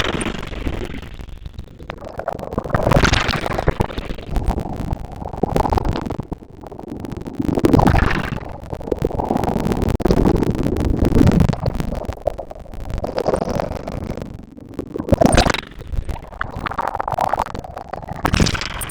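Sea waves breaking and washing up a beach in irregular surges every few seconds, with heavy low rumble from wind on the microphone.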